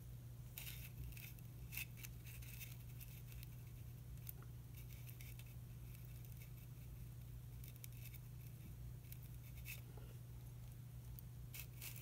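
Faint scattered clicks and scratches of steel forceps and fingertips handling a butterfly specimen on a foam pad, over a steady low hum.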